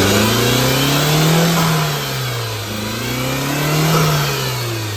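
Tata Zest's four-cylinder petrol engine running, its revs swelling and falling twice. The engine is misfiring on cylinder 4 and hunting, the sign of a fault that later reads as code P0304.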